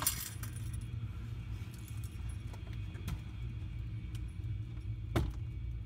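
A few light metallic clicks and clinks, the sharpest about five seconds in, over a steady low hum.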